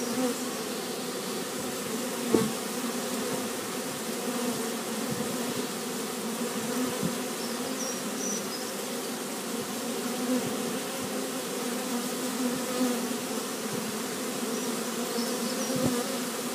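Steady buzzing hum of many honey bees flying around an opened hive, with a couple of light knocks.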